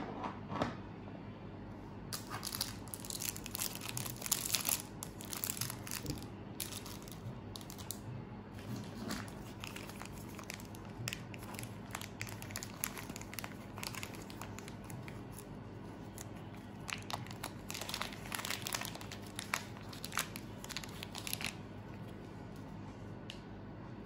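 Clear plastic packaging bags crinkling and rustling in the hands as parts are unwrapped, in irregular crackly bursts that start about two seconds in and stop a couple of seconds before the end.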